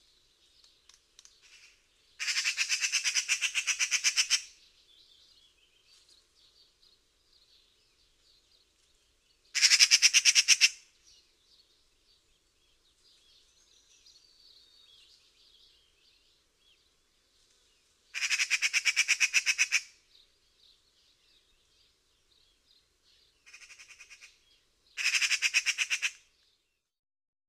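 Magpie chattering: five harsh, rapid rattling calls, each one to two seconds long and several seconds apart, the fourth shorter and fainter, with faint softer chatter between them.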